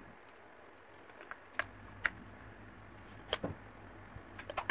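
Irregular light clicks and taps with a quick cluster near the end, over a faint steady hum.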